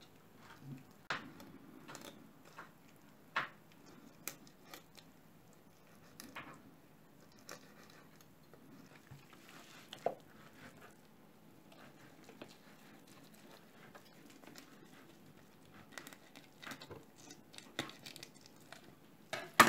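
Quiet hand-handling of a whole raw salmon: soft rubbing and pressing of wet fish skin and flesh on a worktop, with scattered light taps and knocks, one sharper knock about halfway through.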